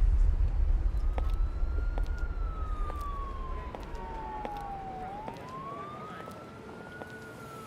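Siren wailing, one tone rising and falling slowly, over a low traffic rumble that gradually fades.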